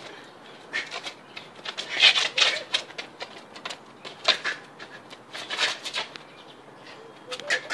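A boxer shadow boxing on concrete: short, sharp hiss-like sounds of his breath and movement come in quick clusters of a few at a time, with gaps between.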